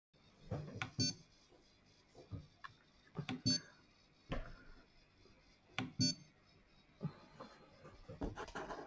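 Prusa MK4 control knob being turned and pressed to scroll its menus: soft clicks and knocks, with three short beeps from the printer about two and a half seconds apart.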